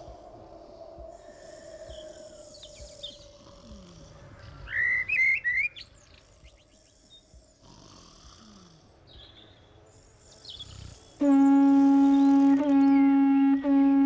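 An animal-horn trumpet blown in one long, steady, low note that starts suddenly about eleven seconds in and dips briefly twice. Before it, over a quiet background, a few short bird chirps about five seconds in.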